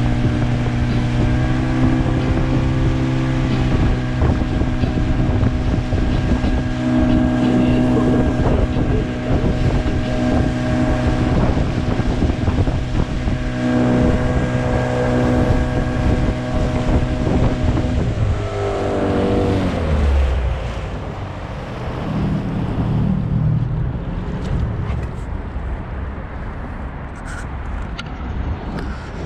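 Gladiator 9.9 hp outboard motor running at a steady speed. About two-thirds of the way through it is throttled back, its pitch falling over several seconds until it runs much quieter, with wind and water noise around it.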